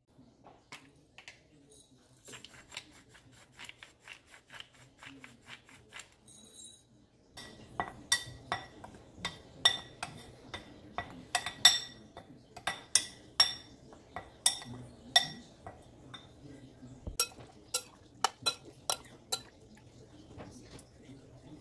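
Metal spoon clinking and scraping against glass mixing bowls while stirring flour and salt together and scooping chicken pieces from their marinade. The sharp clinks come in a quick, uneven series, fainter at first and louder from about seven seconds in.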